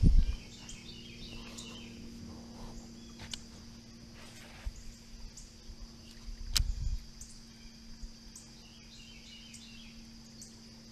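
Outdoor ambience: a steady high insect drone with two short spells of bird chirps. A low handling thump comes at the start, and a sharp click with more thumps about six and a half seconds in.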